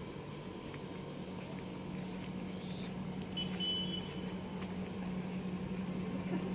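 Street ambience: a steady low hum with faint footsteps, and a brief high beep about three and a half seconds in.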